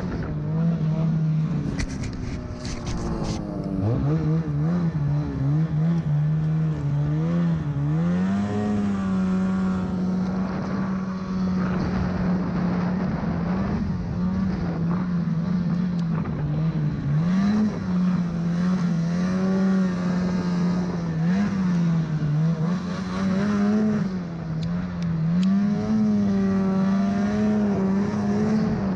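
Snowmobile engine running under the rider while carving through deep powder, its note rising and falling again and again as the throttle is opened and eased.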